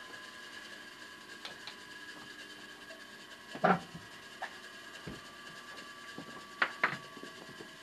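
A quiet, steady hum made of several even tones, broken by a few knocks as a person moves about: one loud knock a little over three and a half seconds in and two more close together near the end.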